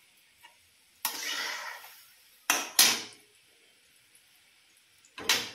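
Steel slotted spoon working in an iron kadhai of frying gulab jamun: a short scrape about a second in, then two quick metallic clanks and another near the end.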